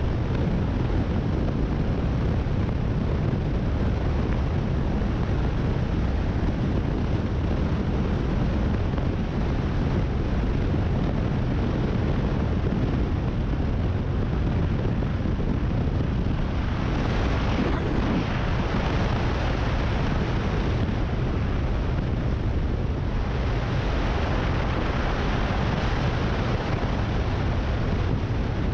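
Cruiser motorcycle riding at road speed: wind rushing over the microphone over a steady deep rumble of engine and road. The rushing grows louder and hissier twice in the second half.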